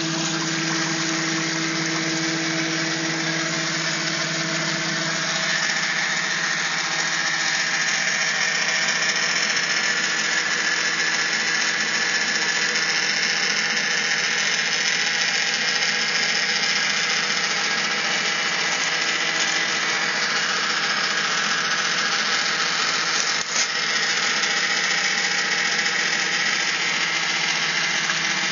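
Electric motor-driven water pump running steadily: a continuous hum over a broad hiss of water moving through the plastic-wrapped rig. The pitch balance shifts slightly about five seconds in, and there is one brief click near the end.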